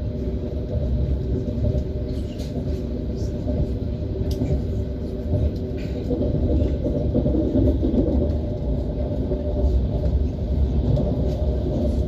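ES1P Lastochka electric train running at speed: a steady low rumble of wheels on rail with a constant hum of several tones over it.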